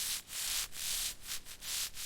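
Hand sanding: quick, uneven back-and-forth scratchy strokes, about seven in two seconds, with short gaps between them.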